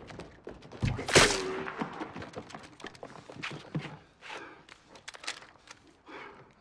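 Footsteps and scattered small knocks on hard ground, with one loud sharp bang about a second in that leaves a brief metallic ring.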